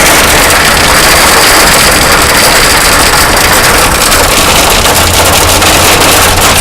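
Hailstones pelting down hard in a loud, dense clatter of countless small impacts over a steady rush of heavy precipitation.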